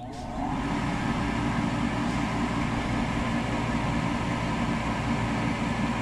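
Draft inducer motor of a Carrier 48GS gas package unit starting and coming up to speed within about half a second, then running steadily with a hum and a rush of air: the pre-purge at the start of a call for heat, before the burners light.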